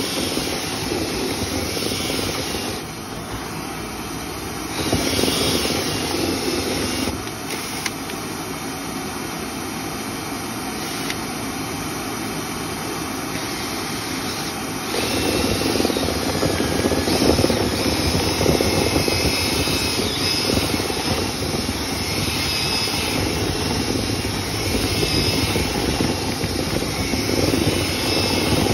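Dryer vent cleaning equipment running: a steady rush of machine and air noise that changes level a few times, then gets louder and rougher from about halfway through.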